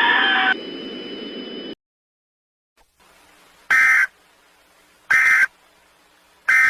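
Three short, harsh EAS end-of-message data bursts, evenly spaced about a second and a half apart. Before them, loud alert audio cuts off about half a second in, then a quieter steady high tone with hiss runs on and stops just under two seconds in.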